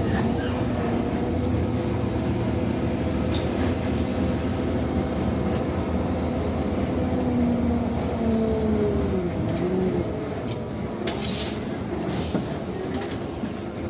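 Intercity bus running with a steady low engine and road rumble. About eight to ten seconds in, a whine dips and falls in pitch, and the rumble eases slightly afterwards.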